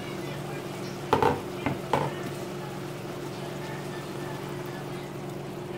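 Sardine stew simmering and sizzling in an uncovered pan over a steady low hum, with a few sharp knocks of cookware about one to two seconds in.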